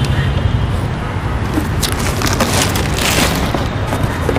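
Stainless steel mixer jars being handled and set down, giving a few short knocks and clinks over a steady low background hum.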